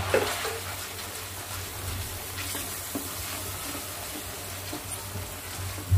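A thick sauce sizzling gently in a non-stick kadai while a wooden spatula stirs and scrapes through it, over a steady low hum.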